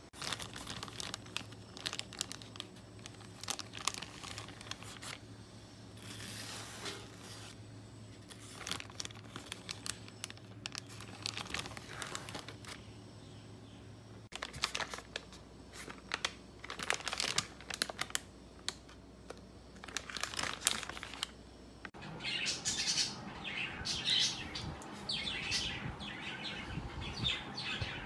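Handling noises: plastic food packaging crinkling and rustling, with scattered clicks and taps.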